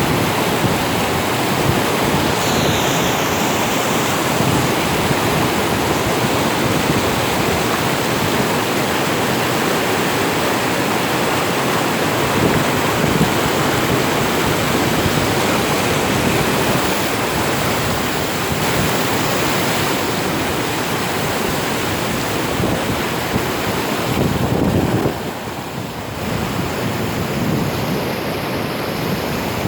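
Loud, steady rush of a river in spate, its water running high and strong after a night of heavy rain. The level dips briefly near the end, then the rush carries on.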